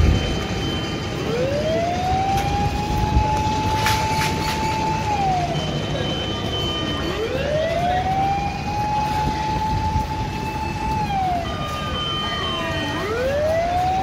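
Fire engine siren wailing in slow cycles: it rises, holds a steady pitch for about three seconds, then falls away, about every six seconds, over a steady low street rumble.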